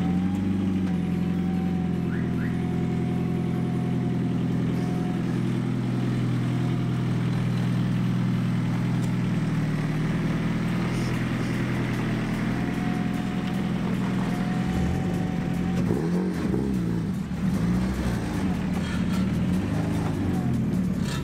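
Honda K24 inline-four in a swapped Subaru BRZ, running through a custom-welded exhaust. It holds a steady note for most of the clip, then its pitch swings up and down in several revs near the end.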